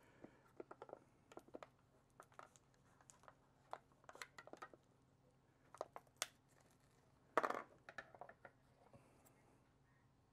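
Faint handling sounds of thread being worked around a cardboard firework cake and its spool: scattered light clicks and rustles, with one louder knock about seven seconds in.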